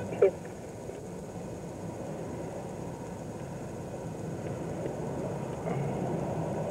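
Steady rumble of highway traffic passing by, with one short, sharp chirp just after the start.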